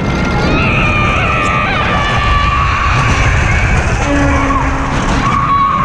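Roller coaster ride: wind rushing over the microphone with the rumble of the moving train, and riders letting out long screams, one lower cry about four seconds in.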